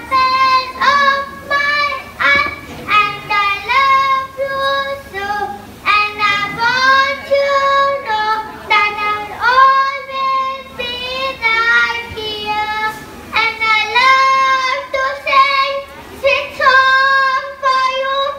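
A young girl singing solo into a microphone: a single high child's voice in short phrases of held and gliding notes.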